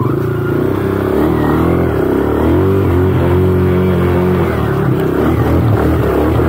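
Trail motorcycle engine running under throttle, its note rising and falling as the rider works the throttle.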